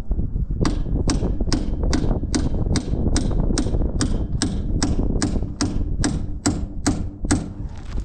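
A hammer striking steel on a John Deere 2940 tractor's front tie rod assembly, about seventeen sharp, evenly spaced blows at a little over two a second.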